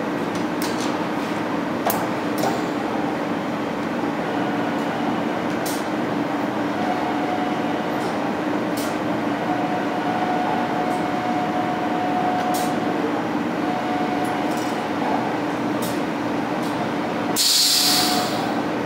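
Robotic assembly line running: a steady machine hum from the Stäubli robot arm and the pallet conveyor, with a higher whine that comes and goes as the arm moves and scattered sharp clicks. A short loud hiss comes near the end.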